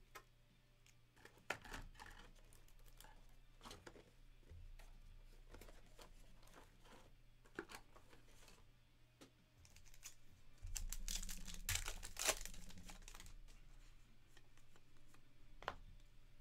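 Trading-card pack wrapper being torn open and crinkled, loudest about two-thirds of the way through, with scattered soft clicks of cards being handled.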